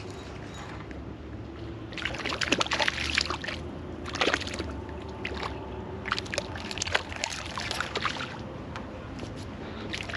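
Hooked rainbow trout splashing and thrashing at the surface near the bank while being played on the line, in bouts of splashing about two seconds in, briefly after four seconds, and again from about six to eight seconds.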